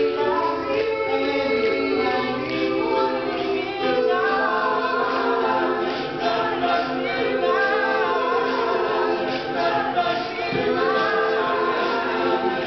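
Male a cappella group singing in close multi-part harmony, with no instruments.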